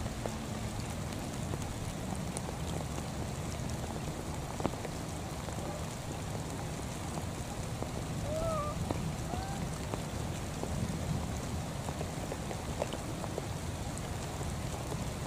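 Steady rain falling on water and wet grass, with a few brief high squeaks about eight to nine seconds in.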